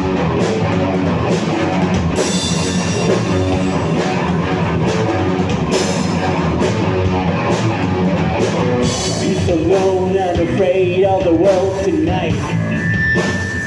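Rock band playing live in an instrumental passage: drum kit and guitars, with a cymbal crash about two seconds in and a wavering melodic lead line coming in near the end.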